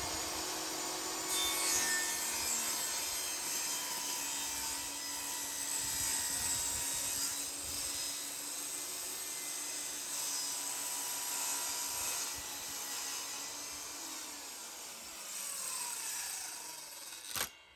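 Table saw running and ripping a strip of red oak, the blade's steady hum with extra noise as the wood feeds through. Near the end the blade spins down with falling pitch, then the sound cuts off.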